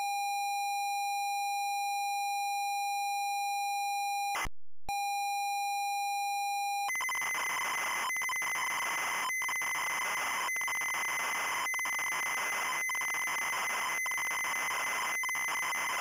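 ZX Spectrum cassette tape loading signal. A steady high pilot tone (the leader) is broken a little over four seconds in by a short blip, the header block, and a brief gap. The pilot tone then returns, and from about seven seconds it gives way to the noisy data screech of the program loading.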